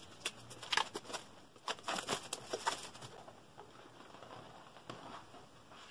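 Plastic shrink-wrap being torn and pulled off a paperback book: a run of short crinkles and rustles over the first three seconds, then fainter handling.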